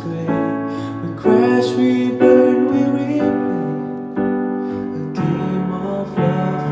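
Piano playing slow sustained chords, a new chord struck about once a second and left to ring.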